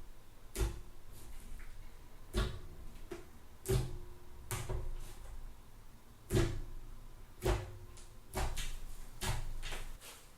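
Thick fluffy slime being pressed and stretched, giving sharp air-bubble pops and clicks about eight times at irregular intervals, roughly one a second, with softer crackling in between.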